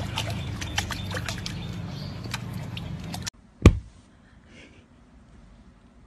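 Water splashing and dripping in a stone pot as a puppy paws at it: many small drips and splashes that cut off suddenly about three seconds in. A single sharp thump follows soon after.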